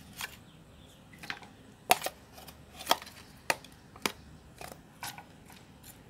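A metal spoon clicking against a bowl: eight or nine sharp taps at uneven intervals, from scooping pounded herb paste onto the fish.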